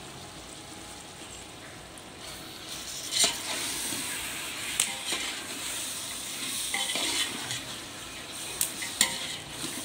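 Vegetables and spice powders sizzling in oil in a large metal pot, with a perforated steel ladle stirring and scraping through them from about three seconds in and knocking against the pot a few times.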